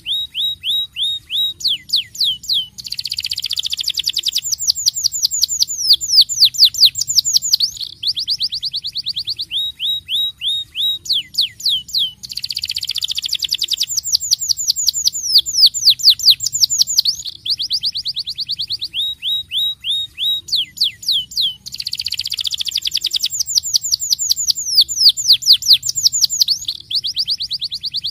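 Starblue canary singing a long rolling song of fast trills and rapid down-slurred notes, without pause. The same run of phrases comes round again about every nine and a half seconds.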